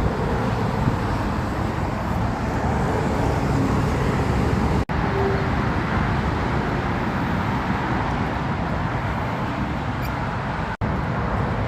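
Steady rumble of road traffic, broken twice by brief drop-outs.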